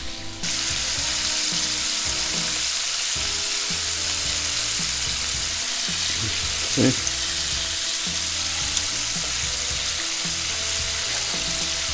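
Breaded shrimp deep-frying in oil at about 350°F in an enameled cast-iron pot: a steady, dense sizzle, with metal tongs turning the shrimp in the oil.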